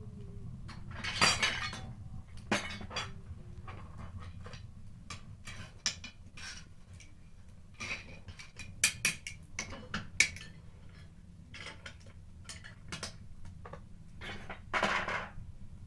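Hard lumps of coal clinking and knocking as they are put into a brick stove's firebox: many irregular clicks, with two longer scrapes about a second in and near the end.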